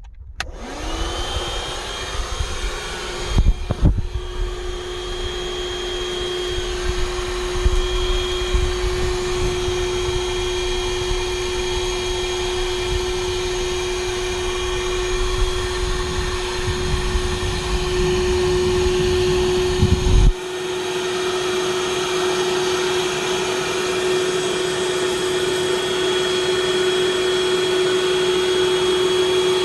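Small plug-in car vacuum cleaner switched on, its motor spinning up to a steady whine over the rush of air through the nozzle. A couple of loud knocks come a few seconds in. A heavy low rumble under the motor cuts off suddenly about two-thirds of the way through, leaving the motor running on.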